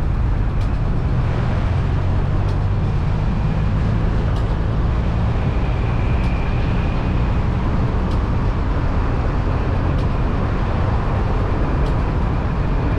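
Steady rumble of a moving road vehicle, tyre, engine and traffic noise running without a break, with a few faint clicks.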